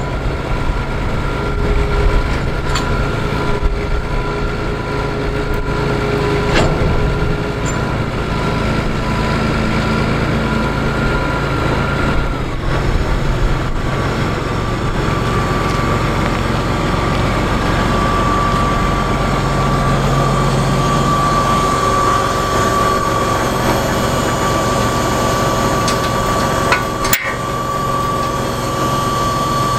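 John Deere 8120 tractor's six-cylinder diesel engine running steadily, with a high whine over the engine note that settles slightly lower about halfway through. A single sharp knock comes near the end.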